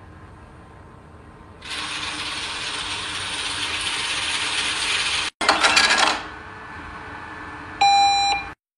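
Cash-machine sound effects: a steady rushing rattle of money being dispensed for about three and a half seconds, then a short burst of clattering, then one electronic beep near the end.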